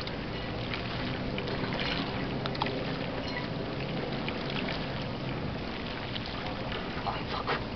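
Steady low hum and water noise at the sea's edge, with a few short sharp knocks about seven seconds in as a landing net holding a black sea bream is lifted from the water.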